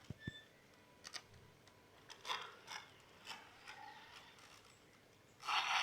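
Small RC car drivetrain making short clicks and brief bursts of gear noise, then a louder burst lasting about a second near the end.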